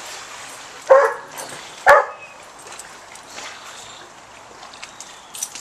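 A dog barks twice, about a second apart.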